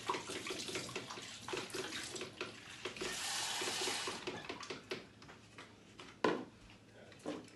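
Water splashing in a stainless-steel kitchen sink as a wooden spoon is rinsed under the tap, with the tap running steadily for about a second midway. Two sharp knocks near the end.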